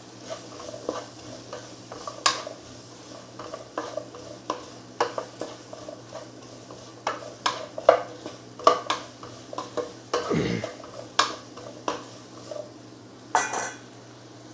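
Spoon stirring bottle gourd in a cooking pan, with irregular clinks and scrapes against the pan as the salt, chilli powder and pepper are mixed in. A heavier knock comes about ten and a half seconds in.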